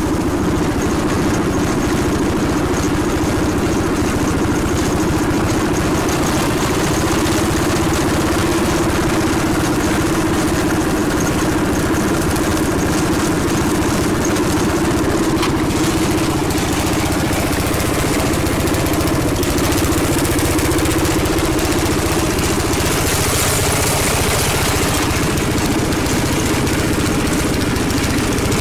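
Engine of a 1979 Craftsman riding lawnmower, converted to run on propane, running steadily as the mower drives across the lawn.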